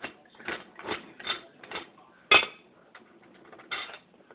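Twist mechanism of a 25-cent coin-operated vending machine turned by hand: a run of ratcheting metal clicks and clunks, about two to three a second, with one louder clunk a little past two seconds in.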